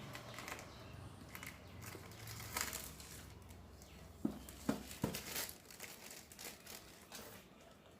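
Paper and plastic packaging crinkling and rustling as a smartphone's retail box is opened and its contents handled, with three light knocks about four to five seconds in.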